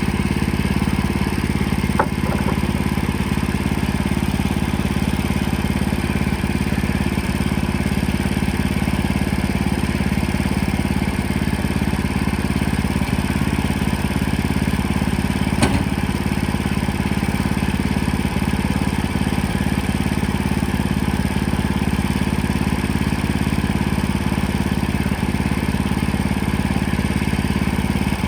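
Sawmill engine running steadily, with two sharp knocks, one about two seconds in and one about halfway through.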